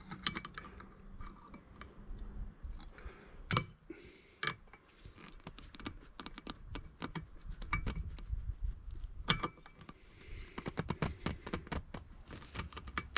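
Pliers clicking and scraping against a steel split pin in an outboard's propeller-shaft castle nut, as the pin's legs are bent straight and the pin is gripped to be pulled out. Many small irregular metallic clicks.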